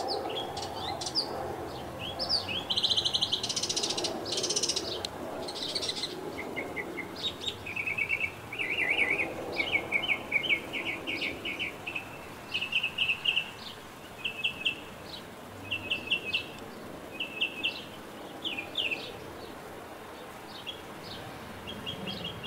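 Small songbirds chirping in short repeated series of quick notes, over a low steady background rumble.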